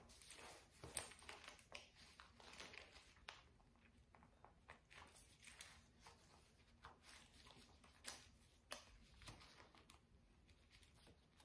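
Faint rustling of a stretchy faja (waist trainer) and scattered small clicks as its front closure is worked by hand.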